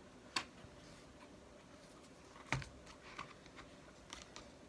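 Keys of a small wireless keyboard being pressed: scattered light clicks and taps, with two sharper clicks about half a second and two and a half seconds in.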